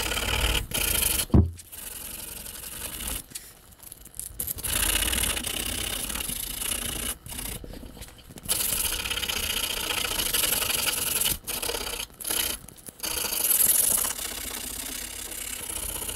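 60-grit sandpaper rubbed back and forth by hand over a rusty steel railroad spike held in a vise: a dry scraping rasp in runs of a few seconds with short pauses between. A single sharp knock sounds about a second in.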